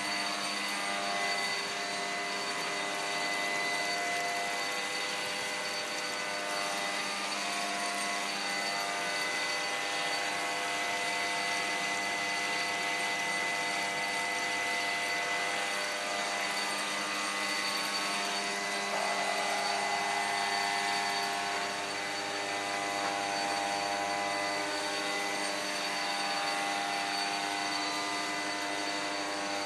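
Electric motor on a homemade tire-to-syngas rig running steadily: a constant machine whine made of several fixed tones over a hiss.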